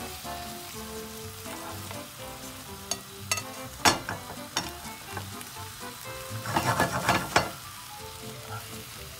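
Gurnard fillets sizzling in butter and oil in a frying pan. Metal tongs click against the pan a few times around the middle, and there is a short clatter about seven seconds in as the pan is moved.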